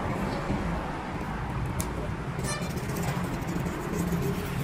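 A motor vehicle engine running steadily under general street and workshop noise, with a brief raspy ticking about halfway through.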